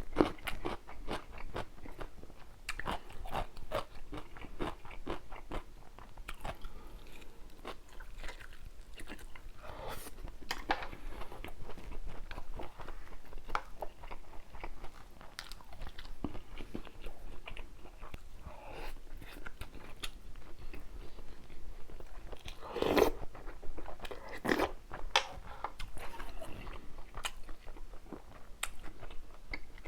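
Close-miked eating sounds: steady chewing with frequent crunchy bites and small wet clicks, with a few louder bites about ten seconds in and again around twenty-three seconds.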